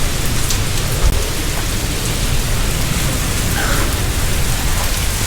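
Hurricane rain pelting down steadily in a squall, with a low rumble of wind on the microphone.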